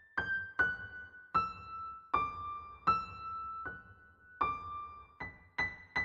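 A slow melody of single piano-like keyboard notes, about ten of them, each struck and left to ring. The tune dips in pitch and then climbs again near the end.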